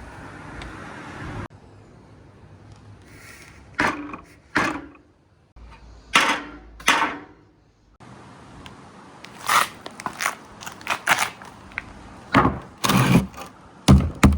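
Marbles rolling down a marble-run track, with sharp clicks and clacks as they drop onto the slopes and knock together; a few separate clacks in the middle, then a rapid run of them near the end.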